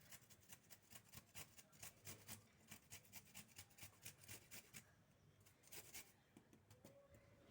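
Fresh ginger root being grated on a hand grater: faint, quick rasping strokes, about four a second, with a short pause about five seconds in before a few more strokes.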